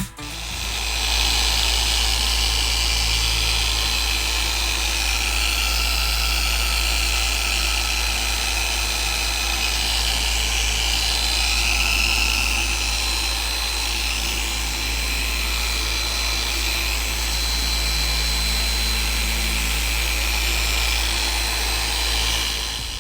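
Electric car polisher running steadily on the paint, a continuous whir with a low hum and a thin, constant high tone.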